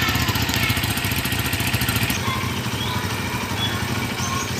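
Two Honda Tiger Revo 200 cc single-cylinder four-stroke engines idling together on choke through their stock exhausts, a steady, evenly pulsing thud.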